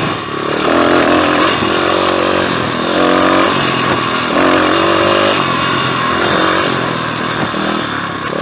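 Pit bike engine revving up and dropping back about six times as the throttle is worked over rocky ground, with the bike running healthily again after its flooded carburettor.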